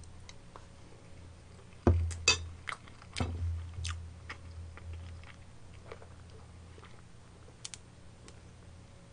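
Close-miked chewing of a mouthful of curry rice, with scattered small clicks and smacks, then a swig from a plastic soft-drink bottle near the end.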